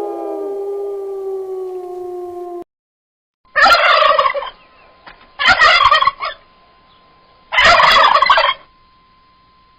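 Turkey gobbling three times, each gobble a rattling call about a second long, with a second or two between them.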